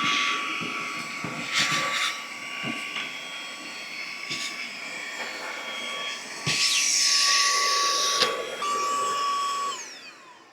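Handheld mini vacuum with a 110,000 RPM brushless motor running with a steady high whine, sucking up pea gravel and dirt with bursts of rattling and hiss as debris goes through the nozzle. Near the end the motor is switched off and winds down in pitch.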